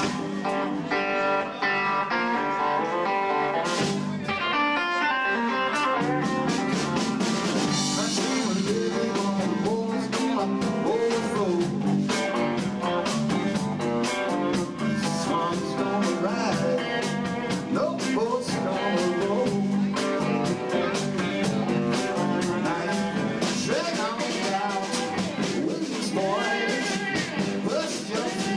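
A live band playing a rock song on electric guitars and drums, with a man singing into the microphone.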